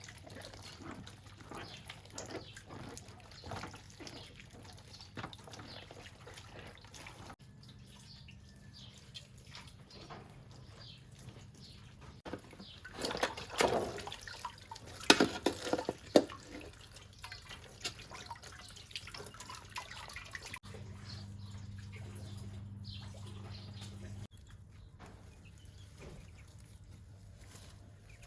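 Water dripping and splashing in short, irregular strokes, with a louder stretch of splashing about halfway through.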